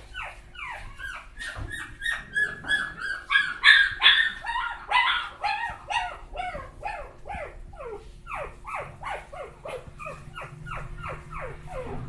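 Young Rottweiler and Labrador puppies whining and yelping, a quick run of short high cries, each falling in pitch, several a second; the loudest cries come around four seconds in.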